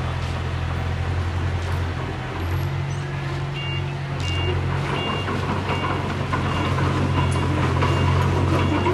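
Heavy diesel engine of a construction machine running steadily, its note rising a little partway through. From about three and a half seconds in, a reversing alarm beeps evenly, roughly one and a half beeps a second, as the machine backs up.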